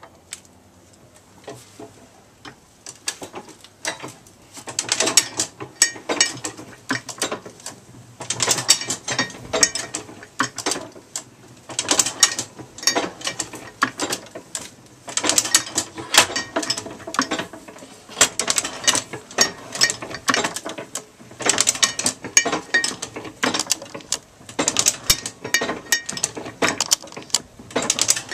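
Golding Pearl platen letterpress running, its mechanism clattering and clicking in a steady rhythm with heavier clanks about every three seconds. Faint at first, it picks up about four seconds in.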